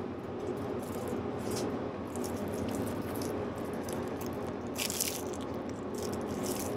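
Plastic wrapping of packaged onigiri crinkling as it is handled, in several short rustles, the loudest about five seconds in, over a steady background hum.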